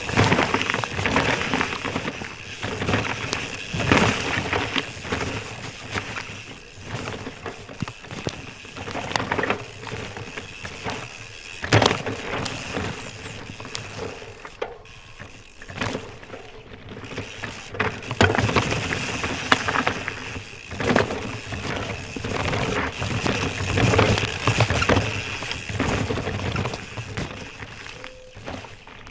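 Nomad LT mountain bike ridden down a rough dirt trail: tyres running over dirt, roots and rocks, with frequent short knocks and rattles from the bike as it takes the hits.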